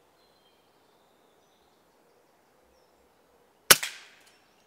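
A single air rifle shot about three and a half seconds in: one sharp crack with a short fading tail, the shot that knocks a grey squirrel off a feeding station.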